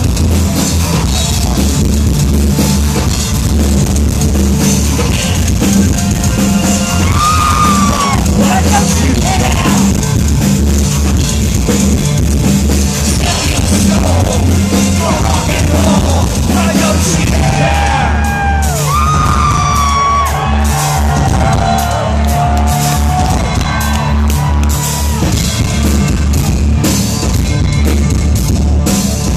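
Live electro-industrial band performance at concert volume: a pulsing bass and electronic backing with a vocalist over it.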